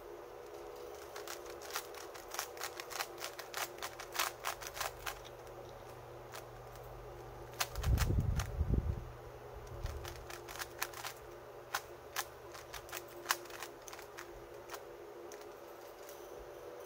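Plastic 3×3 puzzle cube being turned by hand: quick runs of sharp clicks and clacks as the layers snap round. A low thudding near the middle is the loudest sound.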